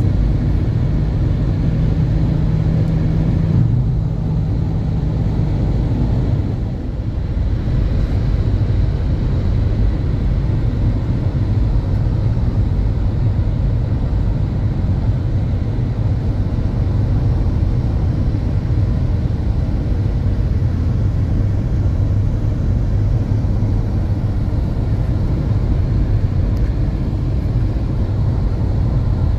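Road noise inside a car's cabin at highway speed: a steady low rumble of tyres and engine, with a low hum over it for the first several seconds.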